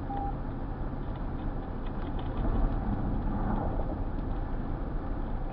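Steady road and engine noise of a car being driven.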